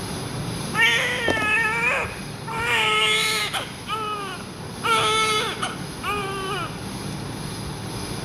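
Newborn baby crying in about five short wails with brief breaths between them.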